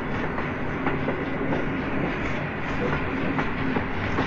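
SNCF compound 'Pacific' steam locomotive No. 231 E 34 with its express train, a steady rumble with sharp clicks coming irregularly about every half second, like a train running over rail joints.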